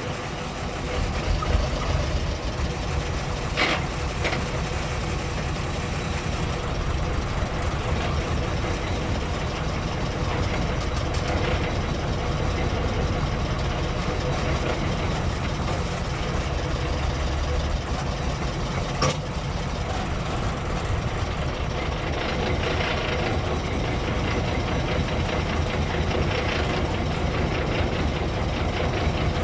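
Engine of an M35 2½-ton military cargo truck running steadily, heard from inside the cab. A few sharp clicks stand out, two about four seconds in and one near the middle.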